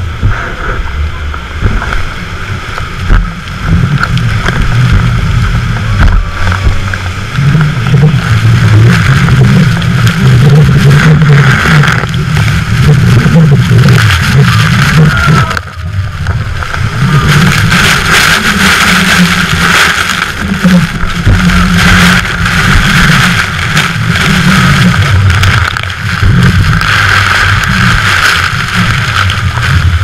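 Tour speedboat's engine running hard over choppy water, with rushing water and heavy spray; the hiss of water and spray swells about halfway through as the boat runs into the mist of the falls.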